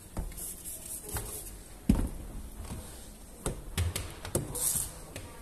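Squeegee working wet window tint film onto car door glass: scattered light taps and knocks of the tool against the glass and door frame, with a louder knock about two seconds in and a short high swish a little later.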